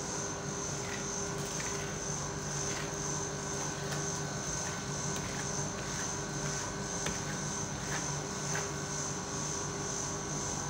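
Steady hum of a rolled ice cream machine's refrigerated cold plate running, with a few faint clicks and scrapes of a metal spatula on the frozen sheet of ice cream.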